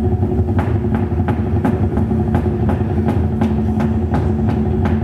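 Electric bass guitar played through an amplifier, a run of picked notes at about three a second over a held low drone.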